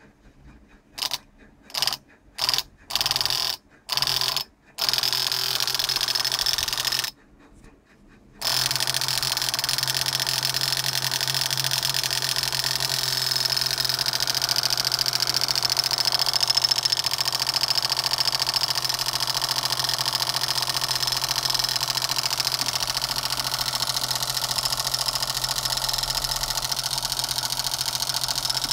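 Homemade toy exhaust silencer: a small DC motor spins a plate and shaft inside an aluminium body, with an internal rod meant to give an engine-like 'tik-tik'. It is switched on and off in several short bursts, runs for about two seconds, stops, then runs steadily from about eight seconds in.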